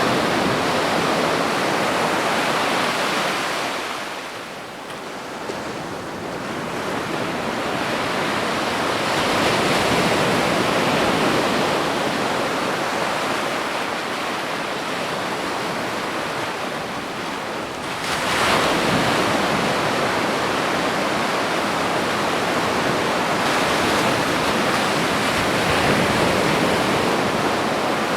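Ocean surf washing onto a beach, a continuous rush of breaking waves. It eases off about five seconds in and surges back as a wave breaks at about eighteen seconds.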